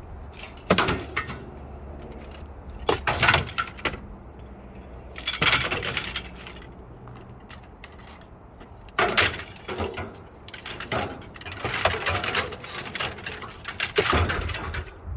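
Light scrap steel being handled and tossed onto a load, clanking and rattling in several bursts over a low steady hum.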